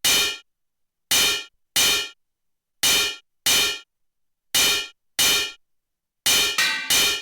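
A sharp metallic clang, like a struck dish, sequenced on a Novation Circuit groovebox: single hits in evenly spaced pairs about two-thirds of a second apart, then a quicker run of three hits near the end, each ringing briefly with silence between.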